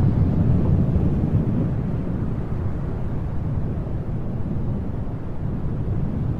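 Wind blowing: a steady, low, rushing noise with no distinct events, easing slightly after a couple of seconds.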